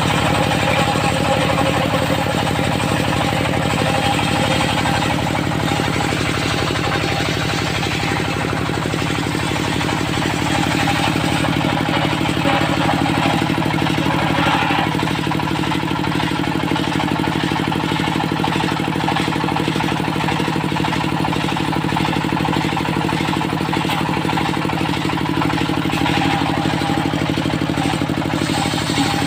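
Engine of a circular sawmill running steadily at a constant speed, its pitch holding even throughout.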